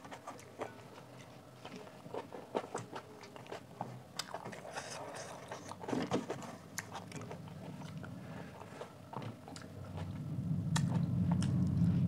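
Close-miked eating sounds: wet chewing and many sharp mouth clicks as the last of a curry meal is eaten by hand, with fingers mopping a stainless steel plate. From about ten seconds in, a louder, low, steady sound joins as the fingers are licked clean.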